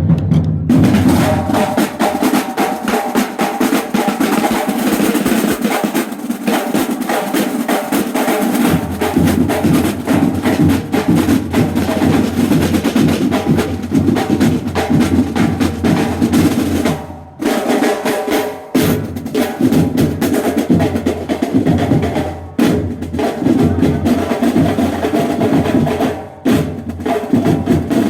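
Marching band playing with a dense, fast snare-drum rhythm and pitched instruments sounding steady notes over it, broken by a few very short pauses in the middle and later on.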